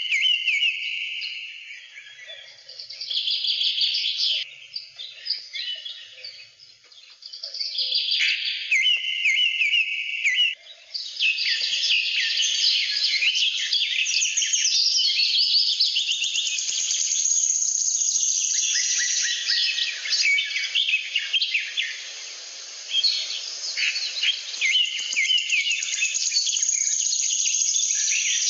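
Birds chirping and singing, many calls overlapping, with short repeated trills.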